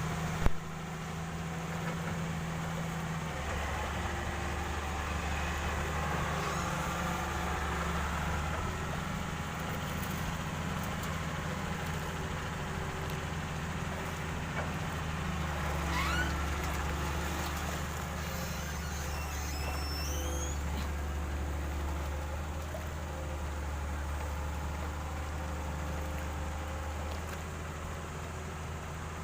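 Excavator's diesel engine running steadily, its low note rising and falling every several seconds as the machine works. Faint high squealing glides come in about halfway through.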